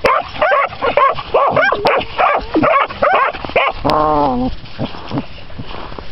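A dog barking and yipping excitedly in a fast string of short calls for about three and a half seconds, then one longer drawn-out bark about four seconds in.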